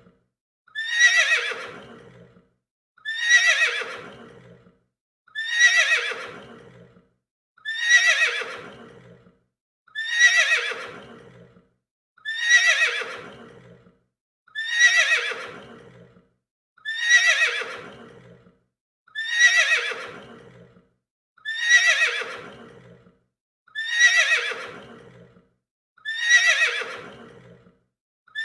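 Horse neighing: the same whinny repeated about every two and a half seconds, each call sliding down in pitch.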